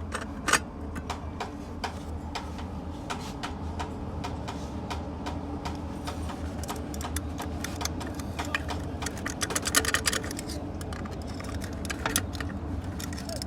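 Small metal clicks and clinks of automatic-transmission parts being handled and fitted together by hand, with one sharper knock about half a second in and a busier run of clinks around ten seconds in. A steady low hum runs underneath.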